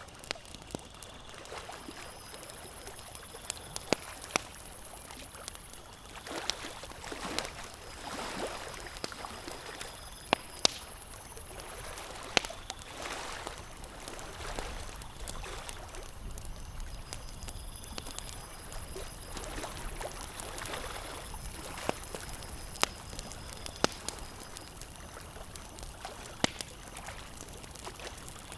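Campfire crackling with sharp, irregular pops, over small lake waves lapping in soft swishes every couple of seconds.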